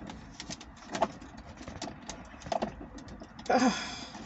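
Scattered light clicks and taps of plastic console trim pieces being handled and fitted back into a car's center console. About three and a half seconds in, a short, louder pitched sound.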